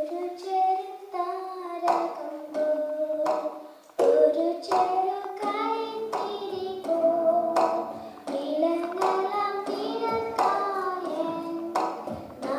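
A young girl singing a Christian song solo into a microphone, with sharp percussive beats keeping time behind her voice.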